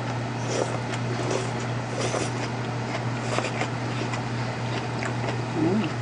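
A person chewing food, with small mouth sounds and chopsticks picking at a plate of salad. A steady low hum runs underneath.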